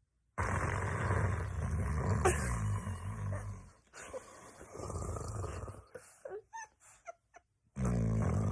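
A man snoring loudly: a long, deep, buzzing snore of about three seconds, a softer breath after it, and another loud snore starting near the end.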